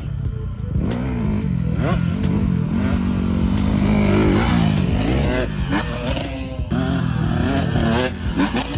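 Dirt bike engine running and revving up and down as it is ridden, its pitch rising and falling over a constant low rumble.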